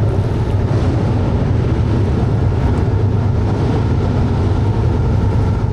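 GE ES44C4 diesel freight locomotives passing close by, their engines running with a loud, steady low rumble that eases off near the end.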